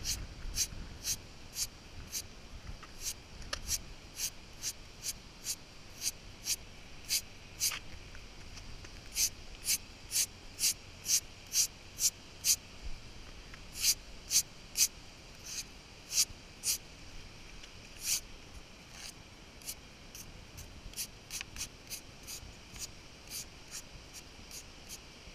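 Small stiff-bristled hand brush scrubbing wet concrete: a steady run of short scratchy strokes, about two a second, with a few brief pauses.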